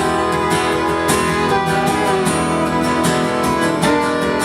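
Country-folk song played live without singing: strummed acoustic guitar with held melodic notes over it, at a steady level.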